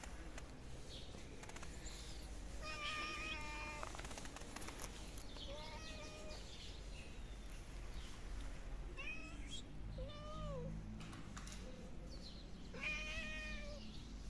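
Kittens meowing: about five separate meows a few seconds apart, the longest near the start.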